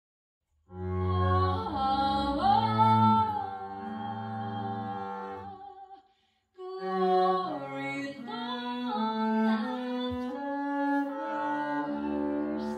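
Female voice singing sustained, gliding notes over low bowed double bass notes. The sound comes in just under a second in and breaks off briefly about six seconds in before both resume.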